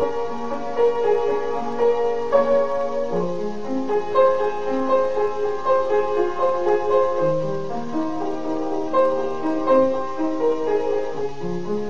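Background instrumental music: a melody of held notes that change about once or twice a second, over lower sustained notes.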